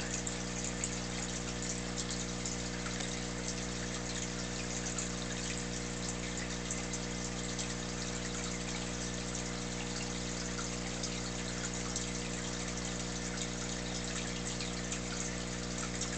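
Aquarium air pump humming steadily, with water bubbling and trickling from the sponge filter.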